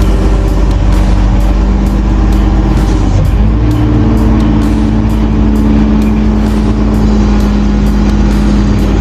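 Crane's diesel engine running steadily, then speeding up about three seconds in and holding at the higher speed, as when the operator takes up a load.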